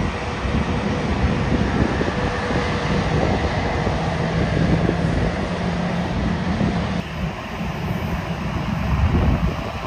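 Jet airliner engines running on the runway: a loud, steady rumble with a faint hum through it. The sound changes abruptly about seven seconds in to a duller rumble that swells again near the end.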